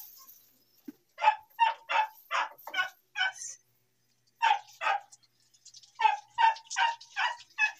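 A dog barking in a dozen or so short, high-pitched yaps, in three quick runs with brief pauses between them.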